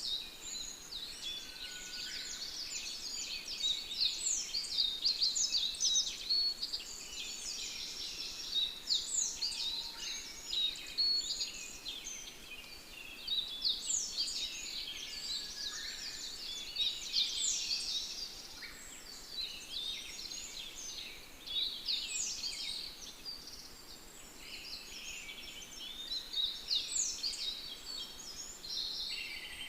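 A chorus of many birds chirping and singing over one another, a dense run of quick high chirps that swells and eases in waves.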